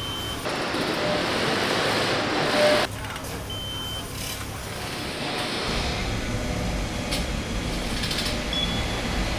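Factory-floor machinery noise: a loud hiss for about two seconds that cuts off sharply, a few short high electronic beeps, and a low hum that comes up about two thirds of the way in.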